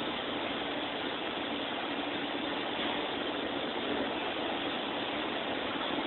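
TIG welding arc burning with a steady, even hiss.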